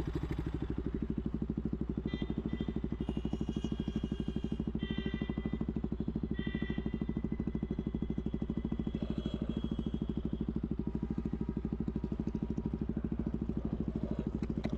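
KTM single-cylinder sports bike idling with a steady, even pulse, heard close up from the rider's seat.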